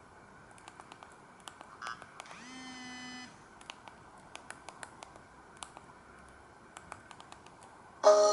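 Samsung GT-C3752 mobile phone: its keypad buttons click repeatedly, with a short beep about two seconds in and a steady one-second tone just after. Near the end a ringtone starts suddenly and loudly from the phone's speaker.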